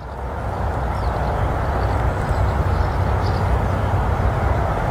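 Steady low rumble of outdoor background noise on a golf tee, with a few faint short high chirps.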